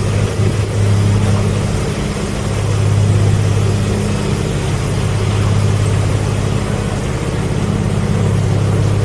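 Narrowboat engine running steadily at low speed under way, a deep even hum that swells and eases slightly.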